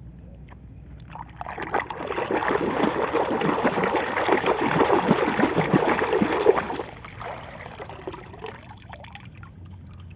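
Water pouring and splashing for about six seconds, then dropping to a faint trickle near the end.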